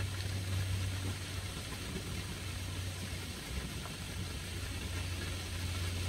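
Water running down a stone water-wall fountain into a pool, a steady splashing hiss, under a steady low hum that is the loudest sound.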